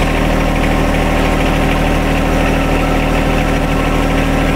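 John Deere 1025R compact tractor's three-cylinder diesel engine idling steadily.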